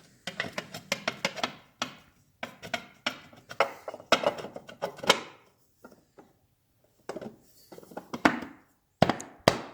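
Metal parts clinking, knocking and scraping as the primary cover of a Triumph Bonneville motorcycle is handled and worked into place over its gasket, with a couple of louder clanks near the end.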